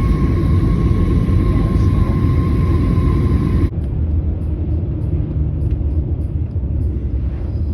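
Steady low vehicle rumble with a thin high tone over it. The tone and the brighter hiss cut off abruptly about halfway through, leaving a duller rumble.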